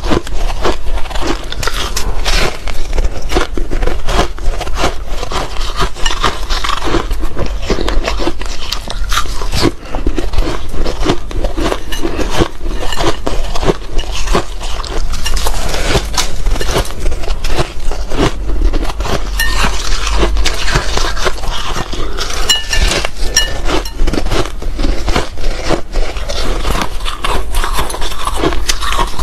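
Crushed ice chewed close to clip-on microphones: a dense, continuous run of crunches, mixed with fingers scooping and squeezing handfuls of soft crushed ice in a glass bowl.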